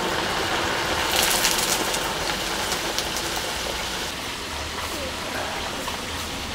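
Green chillies deep-frying in a large kadhai of hot oil, the oil sizzling steadily like rain. The sizzle flares louder for a moment about a second in.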